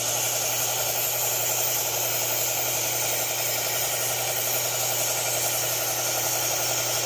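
1x30 belt sander with a 120-grit Cubitron belt running steadily, a serrated bread knife's edge held against the edge of the belt and grinding: a constant motor hum under a steady hiss.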